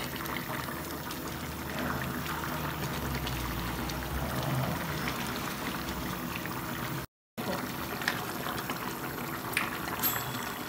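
Thick sauce simmering and bubbling in a pot on a gas stove as a plastic spoon stirs through it, with small pops and ticks over a steady bubbling hiss. The sound cuts out completely for a split second about seven seconds in.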